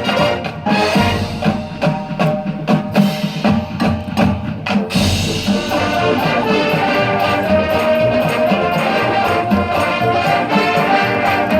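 High school band playing brass and percussion: quick punched ensemble hits for about the first five seconds, then sustained brass chords.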